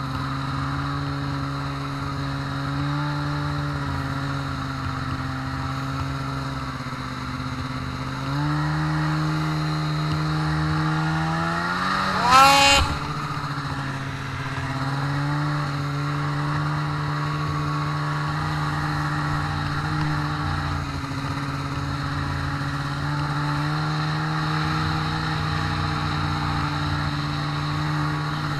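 Snowmobile engine running at a steady cruise. Its pitch steps up about a third of the way in, and a few seconds later it gives one brief sharp rev that rises and then drops back to the steady note.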